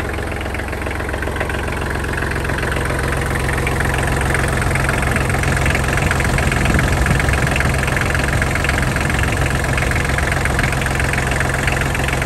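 Kioti DK35 tractor's diesel engine idling steadily, freshly started after an oil and filter change. It grows a little louder in the middle as it is heard close to the engine.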